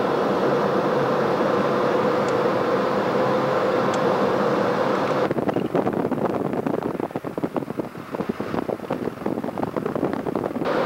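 Steady running noise inside a moving vehicle, with a steady hum. About halfway through it changes to a rougher, fluttering rumble that rises and falls in loudness, and the steady hum returns near the end.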